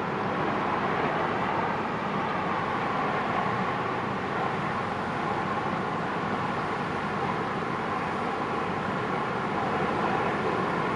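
Inland barge's engine running steadily under way: a continuous, even drone with a rushing noise over it.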